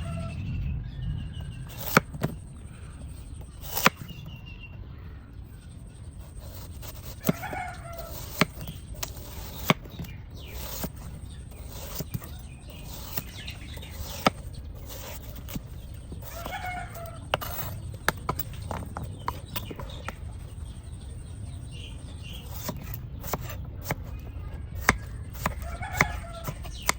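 Sharp clicks and knocks of a knife cutting a ripe watermelon, with chickens clucking and calling every few seconds over a steady low hum.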